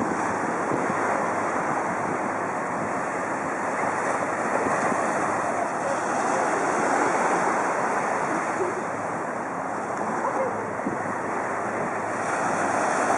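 Small waves washing against the shoreline, with steady wind blowing across the microphone.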